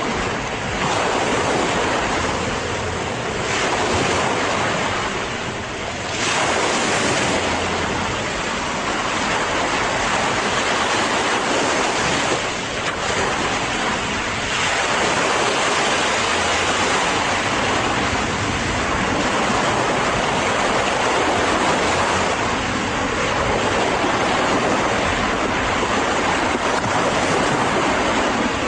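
Ocean waves breaking and washing on a beach, a steady surf with slow swells every few seconds.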